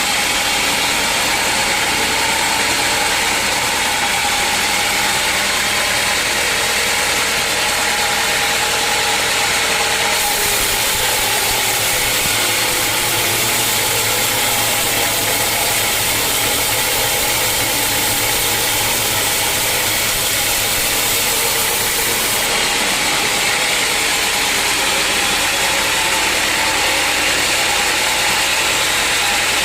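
Sawmill running with steady mechanical noise, its saw working through teak. A brighter hiss comes in about ten seconds in and stops about twelve seconds later.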